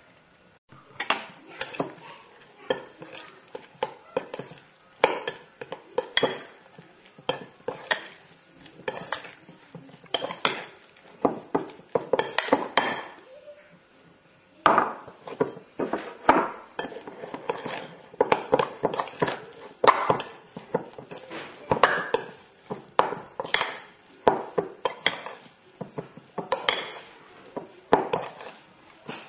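A metal spoon stirring and scraping stiff suet dumpling dough around a glass mixing bowl, in quick irregular strokes that clink against the glass; a short pause about halfway through.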